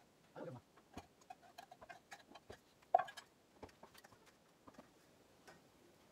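Spoons clinking and scraping against metal dishes in irregular, scattered taps, with one sharper ringing clink about three seconds in.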